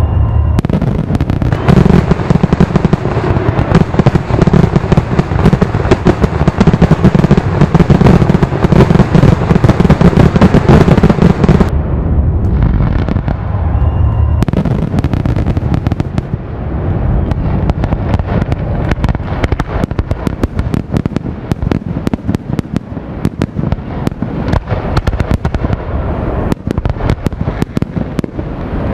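Fireworks display: a dense, loud barrage of aerial shell bursts booming one on another for about the first twelve seconds, then a rapid, continuous crackling of many small reports.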